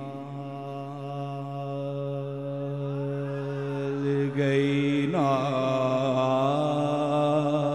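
Male naat reciter singing unaccompanied into a microphone, drawing out long held notes without clear words. About five seconds in, his voice sweeps sharply upward into another long, wavering note.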